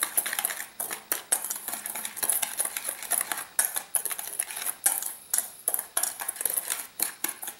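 Wire whisk stirring dry powders briskly in a metal bowl, its wires clicking and tapping against the bowl many times a second.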